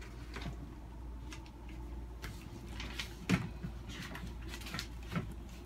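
Light scattered knocks and scrapes of a felt whiteboard eraser being handled against a whiteboard and its tray, the loudest knock a little past halfway, over a steady low hum.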